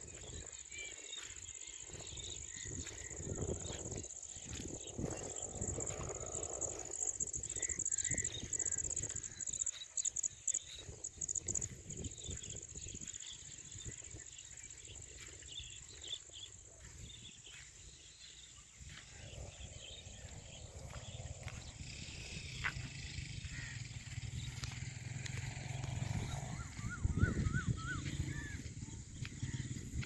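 Evening field ambience: scattered bird chirps, with a quick run of repeated chirps near the end, over a steady high insect drone. A low rumble grows louder in the second half.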